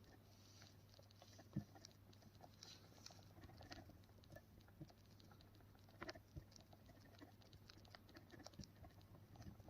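Faint, irregular small clicks and scrapes of a tubular lockpick working the pins of an Ace II tubular lock during single-pin picking, with one sharper click about a second and a half in and a few more about six seconds in, over a low steady hum.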